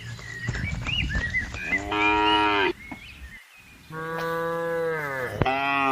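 Cattle mooing: a short moo about two seconds in, a longer, steady moo about four seconds in, and another beginning near the end.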